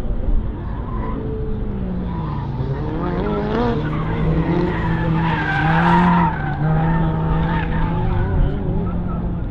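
Mini Cooper's engine revving up and down as the car is driven hard through an autocross course, with tyres squealing in the corners, loudest about six seconds in.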